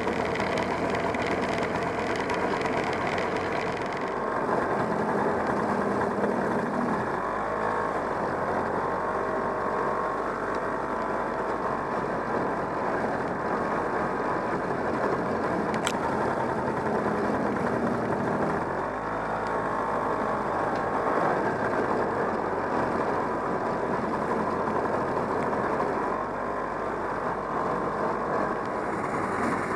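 1969 Polaris Mustang snowmobile's JLO 372 two-stroke engine running under way, its pitch rising and falling a few times as the throttle is worked.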